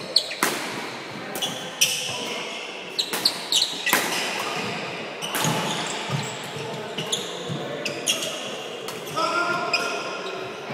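Doubles badminton rally in a hall: sharp cracks of rackets striking the shuttlecock and squeaks and stamps of court shoes on a wooden floor, echoing in the hall. A voice calls out about nine seconds in.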